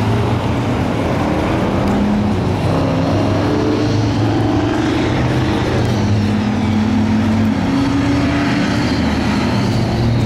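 A motor engine running steadily, its pitch drifting slowly up and down.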